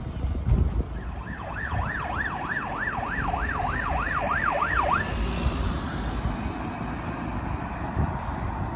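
An emergency vehicle siren sounding a fast yelp: a tone sweeping up and down about two to three times a second for about four seconds, then cutting off. A steady low rumble of road traffic runs underneath.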